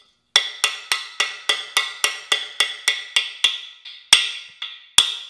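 A hammer striking a socket to drive a freeze plug into a Chevy 350's cast-iron block. A quick run of light, ringing metal taps comes at about four a second, then after a short pause three heavier blows near the end.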